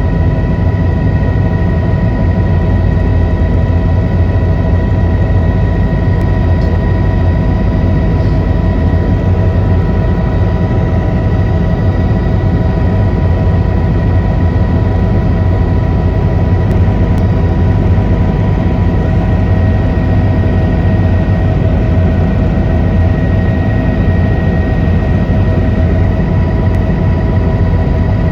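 Helicopter engine and rotors running steadily: a loud, even drone with a steady high whine over it.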